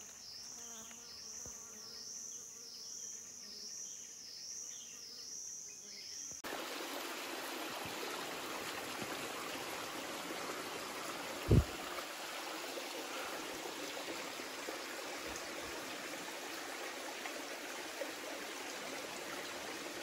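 A high insect drone pulsing in a regular rhythm, which cuts off about six seconds in. Then a shallow rocky stream trickles and runs steadily, with one loud thump partway through.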